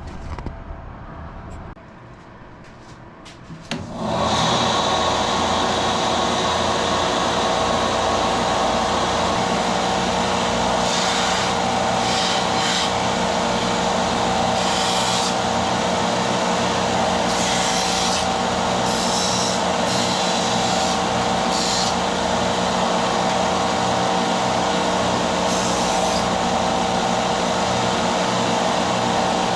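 A power sander switched on about four seconds in and running steadily, with short scratchier bursts every second or two as aluminium bracket pieces are sanded against it.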